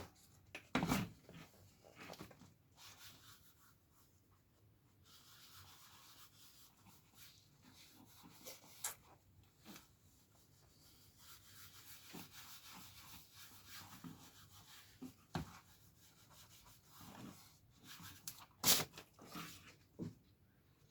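Bumper polish being rubbed onto black plastic car trim by hand: faint, soft rubbing with a few light knocks, the loudest near the end.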